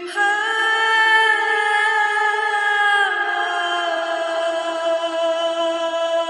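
Slow music of long held notes, moving down to a lower note about three seconds in.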